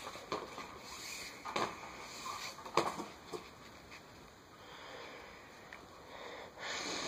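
Nylon paracord being handled and pulled through a weave: faint rustling with a few short, soft knocks and clicks.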